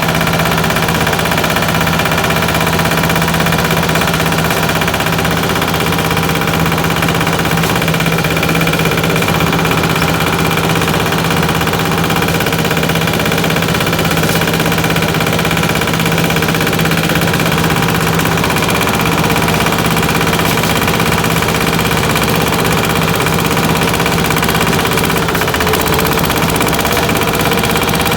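Patpat two-wheel tractor's single-cylinder diesel engine running at a steady speed, loud and even throughout.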